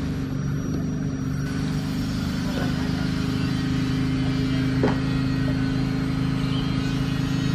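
Approaching train running with a steady low drone of several even tones, with one short sharp click about five seconds in.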